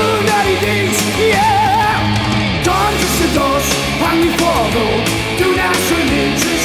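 A heavy metal band playing live: distorted electric guitar and bass over pounding drums and crashing cymbals, with a wavering, bending lead melody on top.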